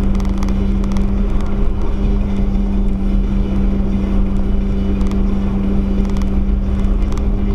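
Car driving at a steady speed, heard from inside the cabin through a dashboard camera: a steady engine drone over road and tyre rumble, with a few light clicks.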